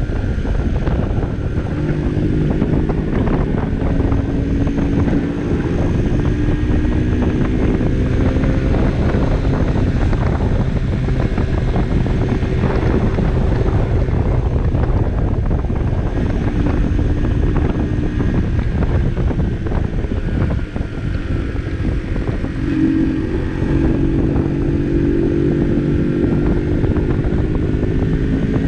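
Barton Volcano 50cc moped's engine running on the move, its pitch rising and falling with the throttle and climbing clearly about three-quarters of the way through. Heavy wind buffeting on the microphone runs under it.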